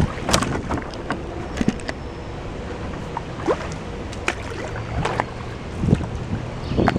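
Canoe being paddled through calm floodwater: paddle strokes swishing and dripping, with scattered small knocks and splashes, over a low steady rumble.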